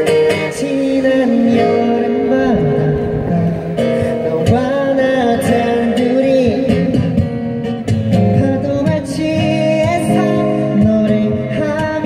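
A man singing live over acoustic guitars, a continuous song with guitar chords under the vocal melody.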